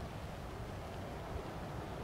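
Steady, even rumble of a Boeing 767-300ER jet's engines and airflow, with no distinct events.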